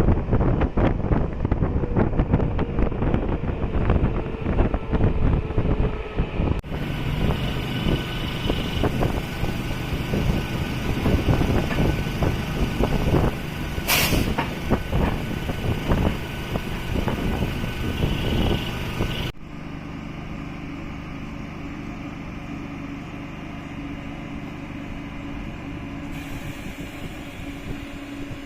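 Running noise of a MEMU electric train heard from on board: a steady rumble with rattling and clattering of wheels on the rails. The sound changes abruptly twice, and there is one sharp crack about halfway through.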